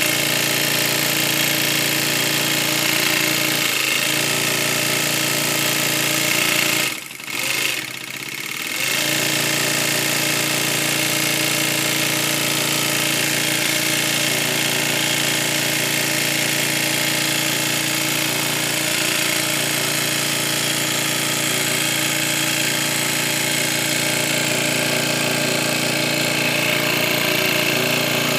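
Industrial post-bed glove sewing machine running steadily as it stitches, with a constant motor hum. It stops for about two seconds, around seven seconds in, then starts again.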